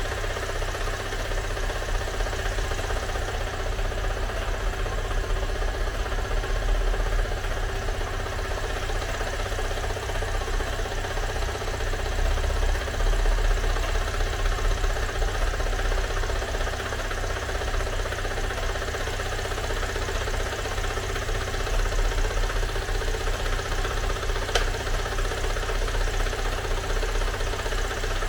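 Car engine idling steadily, with a single sharp click near the end.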